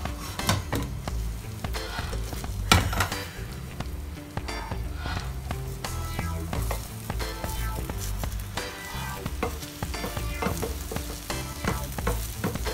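Egg and shrimp sizzling in a hot frying pan while a slotted spatula scrapes and cuts through the setting omelet, with scrapes and clicks against the pan. The loudest click comes about three seconds in.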